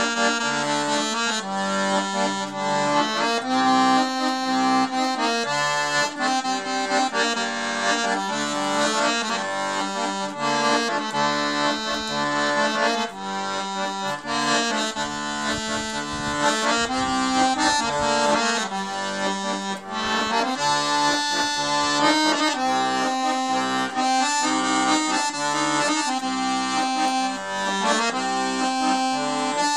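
Solo piano accordion playing a folk tune: a melody on the right-hand keys over left-hand bass and chords, with sustained reedy notes and steady bellows.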